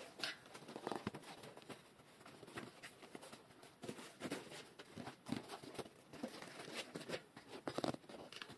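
Hands working a knobby bicycle tire off its rim: rubber tire sliding and rubbing against the rim, with irregular light scrapes and taps.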